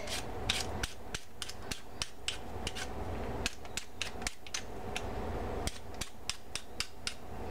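Handheld vegetable peeler scraping the skin off a raw sweet potato in quick repeated strokes, about three sharp scrapes a second.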